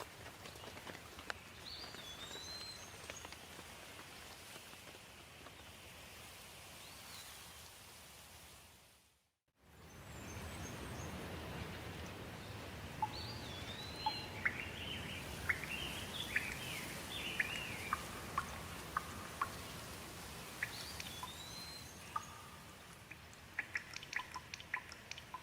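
Steady rain with birds singing over it, one bird repeating the same short phrase several times. The sound fades out to silence for a moment about nine seconds in, then returns with fuller rain and a flurry of quick chirps, and a run of sharp drip-like ticks near the end.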